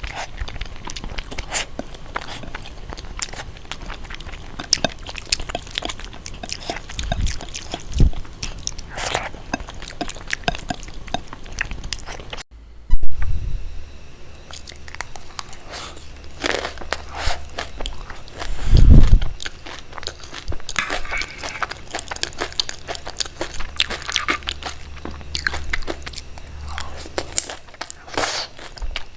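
Close-miked eating: crunchy bites and chewing, a dense run of crisp crackles. It breaks off abruptly about halfway through, and two dull low thuds stand out, one just after the break and one about two-thirds of the way in.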